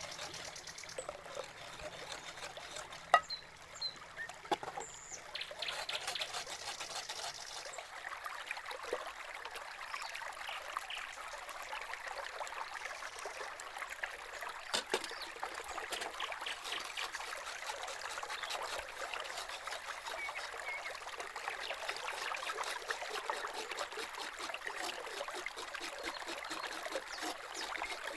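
Water trickling steadily, with a few sharp knocks.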